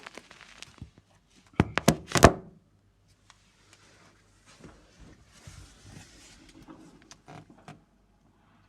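A quick run of four or five loud thuds about two seconds in, followed by quieter rustling and light clicks, like objects being handled close by in a small room.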